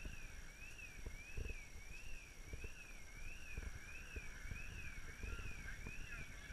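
An electronic siren wails steadily, its pitch rising and falling evenly about one and a half times a second, with scattered dull low thumps.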